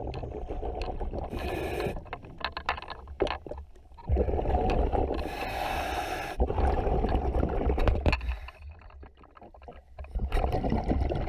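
A scuba diver breathing through a regulator underwater: repeated breaths with bubbling, rumbling exhalations, dropping quieter twice between breaths.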